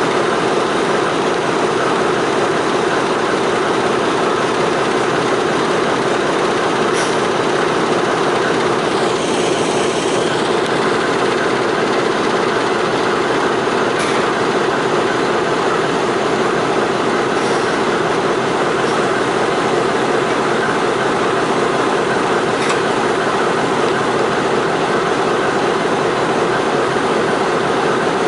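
A locomotive's engine running steadily at idle close by, an unchanging low drone with no rise or fall, and a few faint clicks over it.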